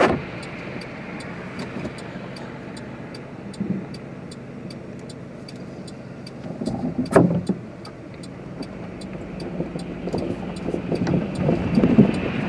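Car driving on snowy, icy roads, heard from inside the cabin: steady engine and road hum, a sharp knock about seven seconds in, and rumble growing louder near the end.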